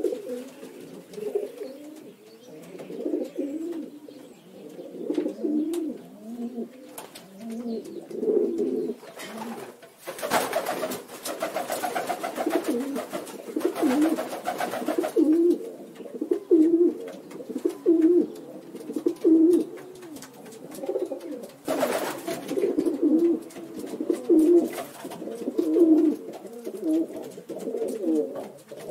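Pigeons cooing: low, throaty coos repeated over and over, sometimes overlapping. A stretch of rustling noise runs about ten to fifteen seconds in, with a shorter one about twenty-two seconds in.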